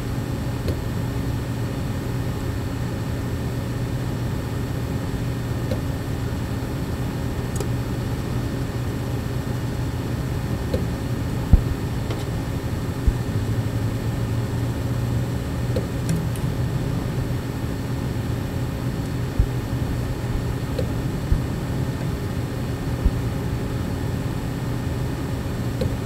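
Western Digital WD Gold 16 TB hard drive clicking about every five seconds inside a running PC, over the steady hum of the computer's fans and spinning drives, with a few sharper taps in between. The periodic click is the drive's preventive wear leveling, a scheduled maintenance action and not a defect.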